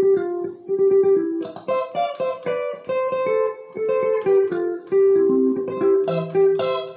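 Stratocaster-style electric guitar picking a quick single-note sungura lead line. The notes move higher about a second and a half in.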